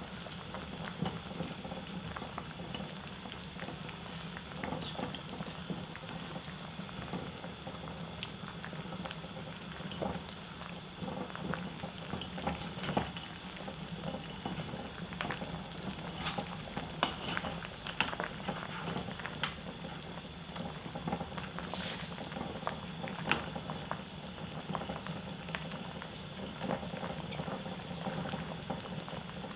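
Spicy skate stew bubbling at a steady boil in a stainless steel pot. Partway through, a wooden spoon stirs it, with a scatter of light clicks.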